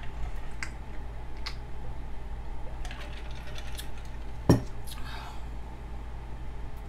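Tableware being handled: a few light clicks, then one sharp, much louder knock about four and a half seconds in.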